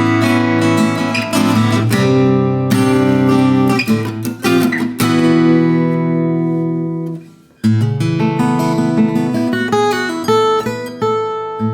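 1934 Gibson L-00 small-body acoustic guitar, spruce top and mahogany body, played in a blues style with strummed chords and picked notes. About seven seconds in, one chord rings out and dies away almost to silence, then the playing starts again.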